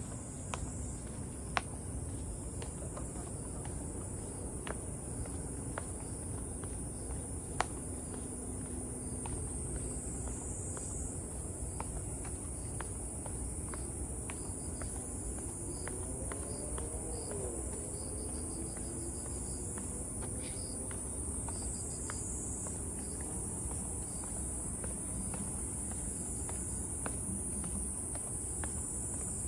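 Steady high-pitched drone of an insect chorus in forest, with a low background rumble and a few sharp clicks.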